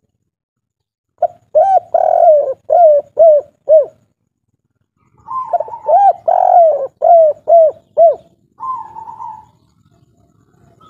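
Spotted dove of the 'kuk 3' song type cooing: two phrases of quick, arched coo notes, the first starting about a second in and the second about five seconds in, followed by a softer purring note near the end.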